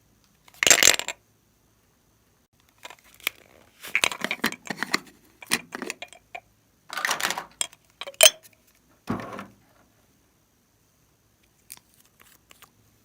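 Plastic crinkling and clattering in short, uneven bursts with sharp clicks, as plastic piping bags and containers of slime supplies are handled and set down; a few faint ticks near the end.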